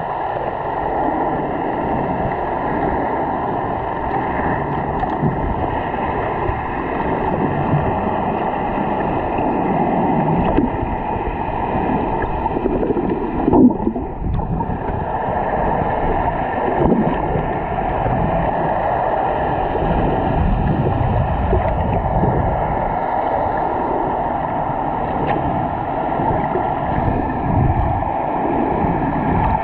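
Muffled underwater noise picked up by a camera moving through the sea: a steady rushing and sloshing of water, with a hum typical of boat engines carried through the water.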